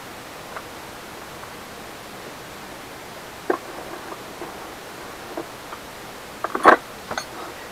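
Faint clicks and taps of a lock nut being threaded by hand onto the wheel axle of a Husky air compressor, over a steady hiss; a short cluster of louder knocks comes near the end.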